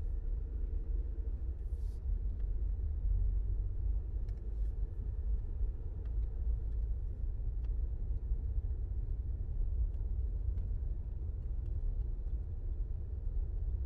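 Jeep driving steadily along a paved road, a continuous low rumble of engine and tyre noise heard from inside the cab.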